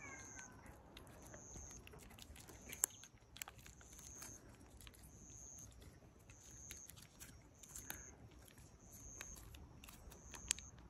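A cat licking and lapping paste from a squeeze-tube treat held to its mouth: faint wet smacking clicks, with a few sharper clicks. A faint high chirp repeats about once a second behind it.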